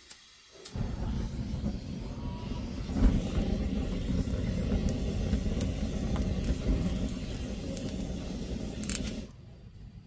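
Biogas burning from the end of a hose as it lights firewood in a clay stove: a steady low rumble that starts suddenly under a second in and cuts off about nine seconds in.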